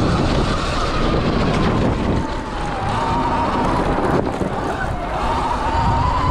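Stock 2020 Sur Ron X electric dirt bike's motor whining under way. The pitch drops as the bike slows for a turn about two seconds in, then climbs again as it accelerates out. Under it, wind buffets the microphone and there is a low, steady rumble.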